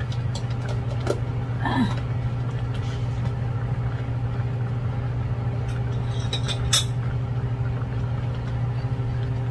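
A steady low hum with a few even tones above it, over a pan of chicken adobo boiling on an electric burner. There are light clicks near the start and one sharper clink of a spatula against the pan about two-thirds of the way through.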